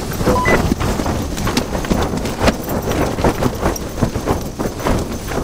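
Tent fabric flapping and snapping hard in storm-force wind: irregular, rapid sharp slaps over a constant low rumble of wind buffeting the tent.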